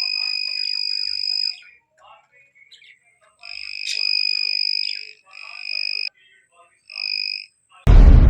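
Piezo buzzer of a homemade BC547 transistor wireless voltage tester giving a steady high-pitched beep that cuts in and out four times, the tester sounding as it senses a live wire. Faint small clicks come between the beeps, and a loud sudden burst near the end leads into music.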